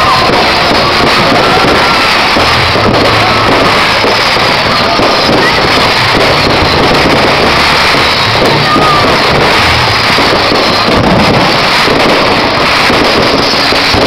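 Fireworks display recorded loud and overloaded: a continuous dense crackle with occasional sharp bangs and a few thin whistling glides. Music plays underneath with a deep bass line.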